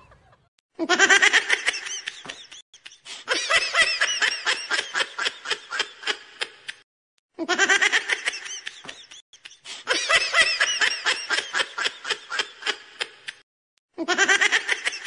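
Laughter sound effect laid over the footage: a burst of high-pitched, rapid giggling that repeats identically about every six and a half seconds, with brief dead-silent gaps between the repeats.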